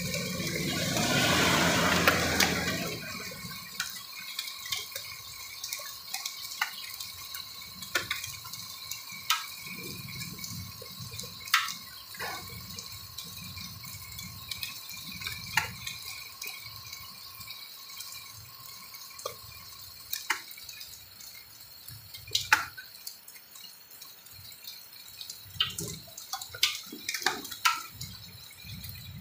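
Heavy rain mixed with hail falling on wet, puddled ground: a steady patter with irregular sharp ticks of drops and hailstones striking, after a loud rush of noise in the first two seconds or so.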